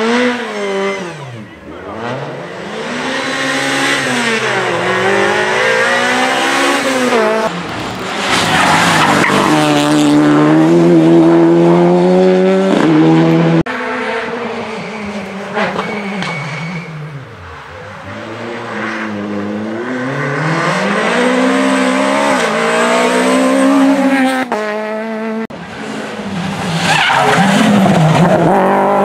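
Rally car engines revving hard past the roadside, pitch climbing and dropping over and over with gear changes and braking into corners, with tyre squeal at times; the sound cuts abruptly between several different cars.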